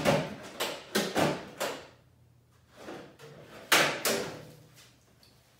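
Sharp clacks and knocks of hard plastic robot-vacuum wheel parts and hand tools being handled on a workbench: a quick run of them in the first two seconds, then two louder ones around four seconds in.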